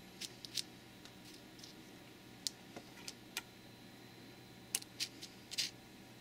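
Fingers tapping and scraping on a 3D-printed plastic raft with a ridged surface, giving a scatter of sharp, irregular clicks, some in quick pairs, against a faint steady hum.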